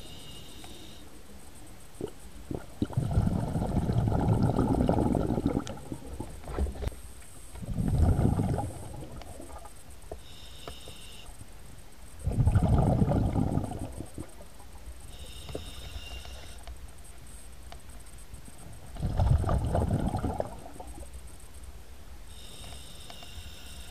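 Scuba diver breathing through a regulator, heard underwater: a short hiss on each inhalation and a rumbling rush of exhaled bubbles, four breaths.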